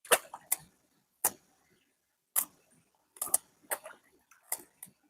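Irregular sharp knocks and clicks, about a dozen in five seconds, some coming in quick pairs, with silence between.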